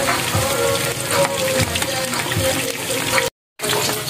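Battered chicken intestines deep-frying in hot oil in a wok, a dense crackling sizzle with scattered pops. The sound drops out for a moment near the end.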